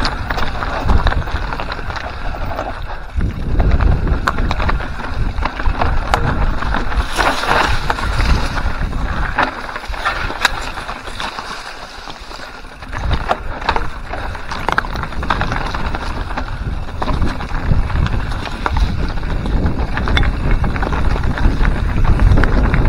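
Mountain bike riding down a rocky singletrack: tyres rolling over loose stones, the bike rattling with many small knocks, and wind rumbling on the microphone. It eases off for a few seconds in the middle.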